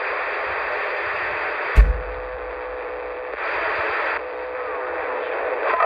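Cobra 148GTL CB radio's speaker hissing with band static between transmissions. There is a thump nearly two seconds in, and a faint steady tone runs in the static for about a second and a half after it.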